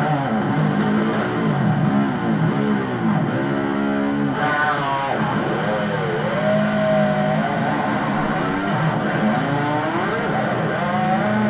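Electric guitar lead playing, the notes repeatedly bent up and down in pitch, with a steep falling glide about four seconds in.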